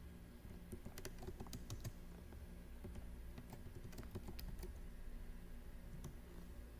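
Typing on a computer keyboard: a run of faint keystrokes, most of them in the first few seconds and one more near the end, over a low steady hum.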